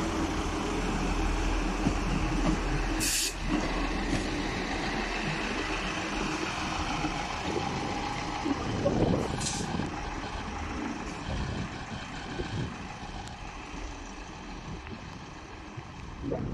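ScotRail diesel multiple unit pulling away, its engine running steadily and gradually fading as it moves off. Two short, sharp hisses of air come about three and nine seconds in.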